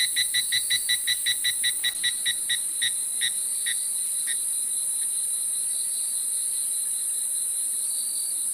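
A steady high-pitched insect chorus, like crickets trilling. Over it runs a fast, even series of pitched chirps, about five a second, which slows and dies away about four seconds in.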